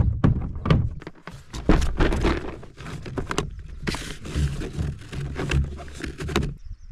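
Irregular knocks, clicks and rustling from gear being handled on a hard plastic fishing kayak, as a soft bag is pushed and tugged under the bungee cords of the rear storage well.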